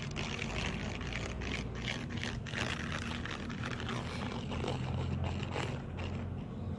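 A paintbrush stirring school glue and violet paint in a bowl: irregular wet scraping strokes that stop about six seconds in, over a steady low hum.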